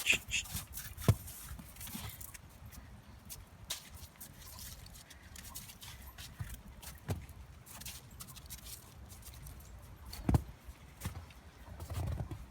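Scattered steps crunching in snow, with a few sharper knocks about a second in, about seven seconds in and just after ten seconds, and a quicker run of steps near the end.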